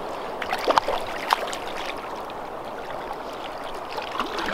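River water running steadily, with a few sharp splashes in the first second and a half and again near the end as a hooked trout thrashes at the surface.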